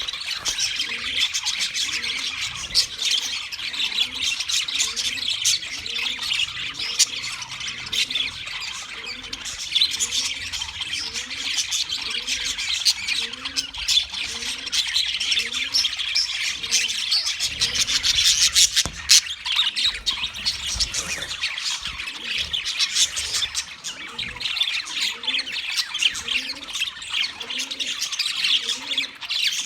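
A flock of budgerigars chirping and chattering continuously in a dense, overlapping stream of short squawks and warbles. A faint low note repeats steadily underneath.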